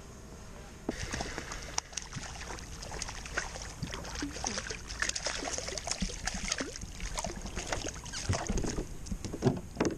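Water splashing and trickling beside a plastic kayak as a fish is let go by hand, followed by scattered small clicks and knocks of fishing tackle being handled. The noise starts about a second in, with a few stronger knocks near the end.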